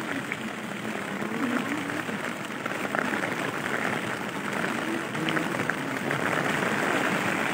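Heavy typhoon rain falling on a plastic tarpaulin held overhead: a steady hiss with many scattered drop ticks.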